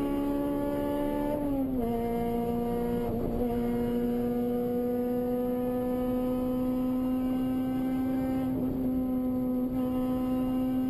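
Honda K20 inline-four engine running steadily at high revs: one sustained note that dips slightly about one and a half seconds in, then climbs slowly.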